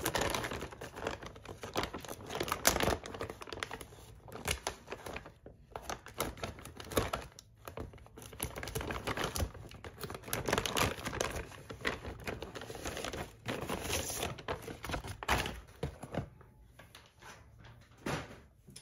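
Plastic courier mailer bag crinkling and rustling as it is handled and cut open with a knife, with many irregular sharp clicks and crackles that die down near the end.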